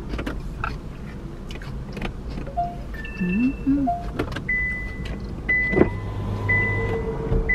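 Car dashboard chimes, then a warning chime beeping about once a second. About six seconds in, the engine starts with a thump and settles into a steady idle under the continuing beeps.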